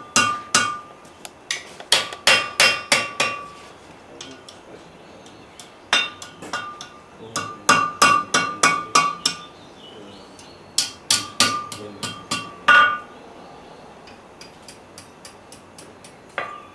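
Blacksmith's hand hammer striking hot iron on the horn of an anvil, in short runs of quick blows with pauses between. Each blow rings with a clear high anvil tone. Over the last few seconds only light taps are heard.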